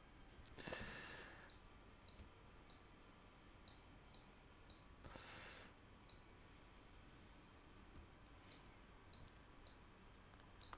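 Faint scattered clicks of a computer mouse, with two soft rushes of noise, one about a second in and one about five seconds in.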